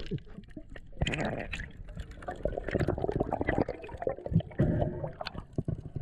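Underwater sound picked up by a submerged camera: water gurgling and bubbling, with many small clicks and knocks that thicken from about a second in.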